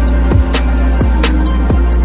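Background electronic music with a steady beat of deep kick drums, about two a second, over a sustained bass.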